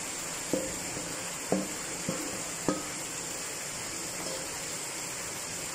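Fried eggplant pieces scraped with a wooden spatula from a pot into simmering curry gravy, with four light knocks of the spatula against the pot in the first three seconds, over a steady hiss.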